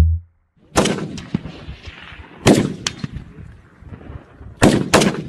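Rifle shots at an open-air firing range. One comes about a second in and another about two and a half seconds in, then two close together near the end. Each sharp crack trails off in echo.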